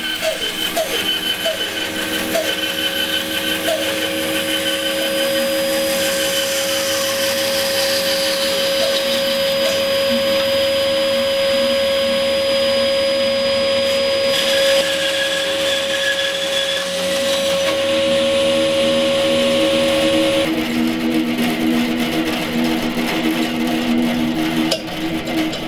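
Electric bandsaw running, its blade cutting wood, with a steady motor whine. The whine's tone shifts about twenty seconds in.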